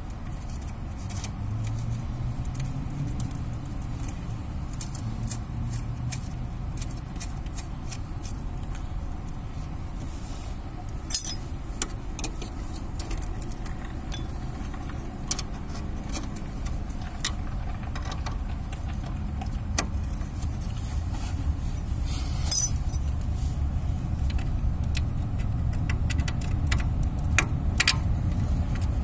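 Small metallic clicks and clinks of bolts and nuts being fitted by hand to a new ball joint on a car's lower suspension arm, with two sharper clicks, about 11 and 22 seconds in, over a steady low rumble.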